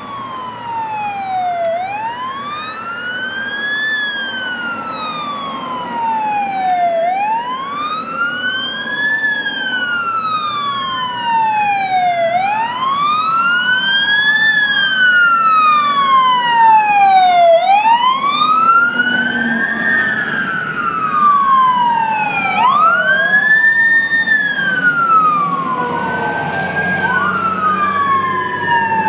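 Fire truck sirens wailing, each sweep rising and then falling in pitch about every five seconds, with a second siren overlapping out of step. They grow louder as the trucks approach, and near the end the sweeps come faster.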